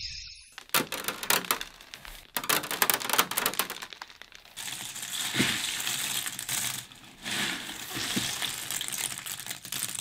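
Loose dried corn kernels shifting and spilling: a dense crackle of many small clicks that comes in uneven waves, with brief lulls about two, four and seven seconds in.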